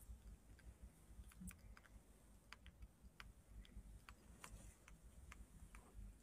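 Faint, irregular small clicks, about a dozen, of a baby macaque gnawing and chewing on a stick of food.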